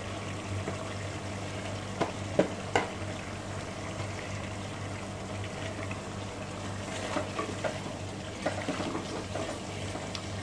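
Tomato and spice masala sizzling and bubbling in an aluminium pot as raw chicken pieces are added and stirred in with a slotted spoon. Three sharp knocks of the spoon and chicken against the pot come about two to three seconds in, with lighter clicks later, over a steady low hum.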